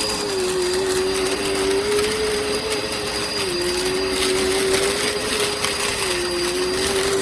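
Dirt Devil Endura Lite upright bagless vacuum cleaner running: a steady motor whine over airflow noise, its pitch dipping slightly now and then.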